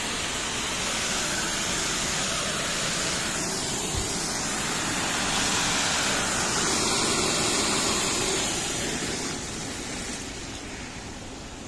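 Water under pressure spraying out of a burst hydro supply pipe beside a Pelton turbine: a steady hissing rush that eases off a little near the end.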